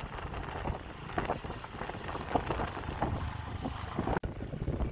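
Wind buffeting the microphone: a low rumble with faint, indistinct sounds behind it, and a brief dropout about four seconds in.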